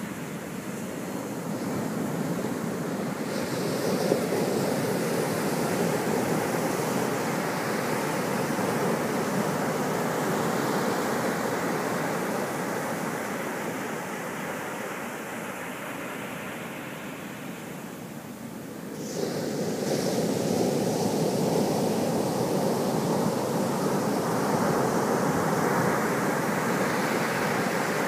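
Ocean surf breaking and washing up a sandy beach: a steady rush of water that swells, eases off, then rises sharply again about two-thirds of the way through as another wave breaks.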